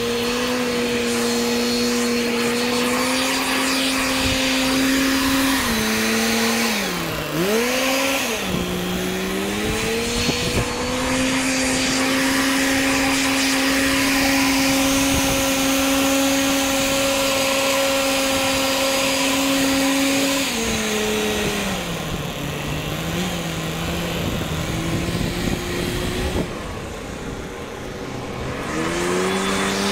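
Backpack leaf blower running at high throttle with a steady whine. Its pitch dips and swings back up twice about six to eight seconds in, drops to a lower pitch about two-thirds of the way through, and climbs back up near the end.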